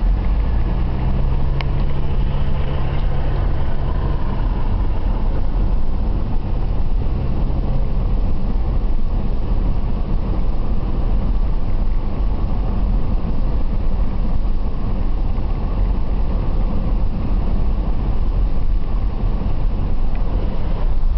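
Car driving along a race track at speed, heard from inside the cabin: a steady low rumble of engine, tyres and wind. A steady low engine note sits in the rumble and fades out about eight seconds in.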